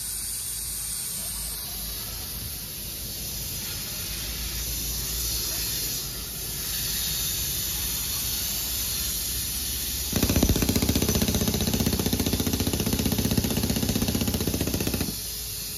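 Pneumatic jackhammer with a compressed-air hose: a steady hiss of air for the first ten seconds or so, then a fast hammering rattle until shortly before the end.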